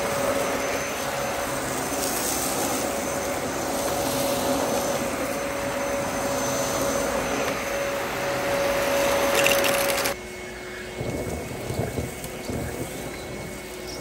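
Dyson upright vacuum cleaner running steadily with a thin motor whine as it is pushed over a rug. About ten seconds in it cuts off suddenly, and a quieter cylinder vacuum's hum takes over, with irregular gusts of wind on the microphone.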